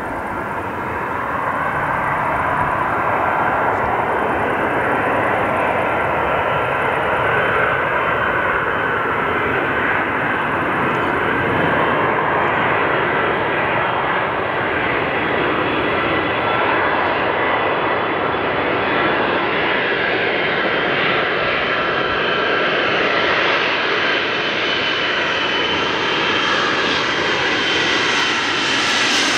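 Four Pratt & Whitney TF33 turbofans of a Boeing 707-based E-3A AWACS on landing approach: a steady jet rush with a whining tone. It grows louder over the first few seconds, and the hiss climbs higher as the aircraft draws near.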